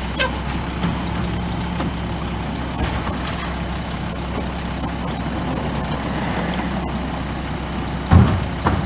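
Rear-loader garbage truck's diesel engine idling steadily, with a thin steady high-pitched whine over it. A loud thump comes about eight seconds in.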